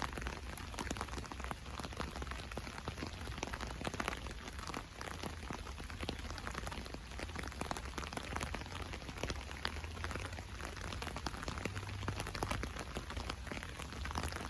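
Rain drumming on an umbrella canopy: a dense, steady patter of many small drop ticks over a hiss of rain.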